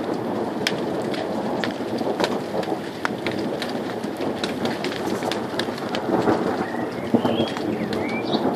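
Thunderstorm: steady rain with sharp drops ticking on nearby surfaces, over a continuous low rumble of thunder. A bird chirps a few times near the end.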